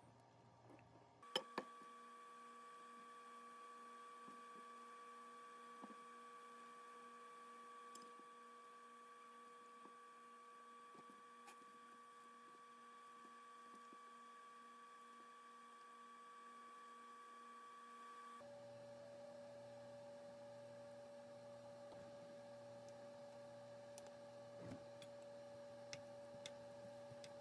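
Near silence: a faint steady electrical hum, with a sharp click about a second in and a few faint ticks. The hum shifts to a lower tone about two-thirds of the way through.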